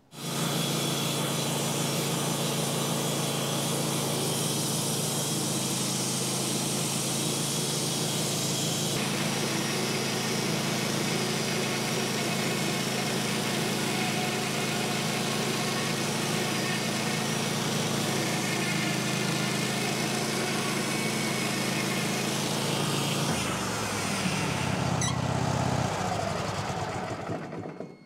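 Wood-Mizer band sawmill's engine running steadily under load as the band blade cuts through a pine log. A little past twenty seconds in, the engine's pitch drops, and the sound falls away near the end.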